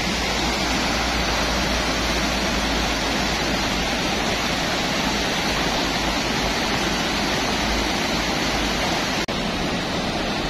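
Swollen, muddy river water rushing and churning through the outflow below a weir: a steady, loud rush of white water. It drops out for an instant about nine seconds in.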